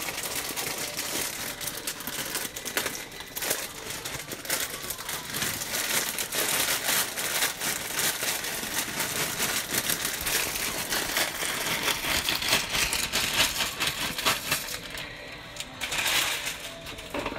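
Plastic bag of dry tri-color rotini crinkling and rustling as the pasta is shaken out of it into a pot of boiling water, with many small clicks of the dry pasta.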